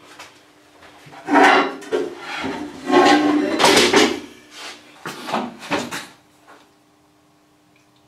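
A wooden birdhouse and its roof being handled and worked on at a workbench: a run of scraping, knocking bursts from about one to six and a half seconds in.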